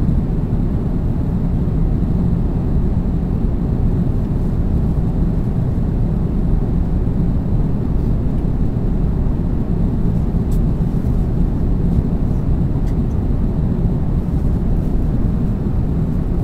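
Airplane cabin noise in flight: a steady low rumble of engines and airflow.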